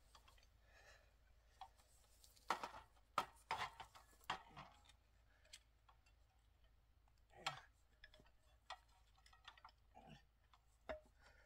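Faint, scattered clicks and knocks from handling the PEX water line and the pump's safety cable at the wellhead of a drilled well, with a cluster of them a few seconds in.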